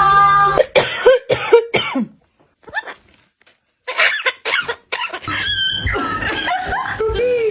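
Short, harsh coughs in two clusters with a quiet gap between them.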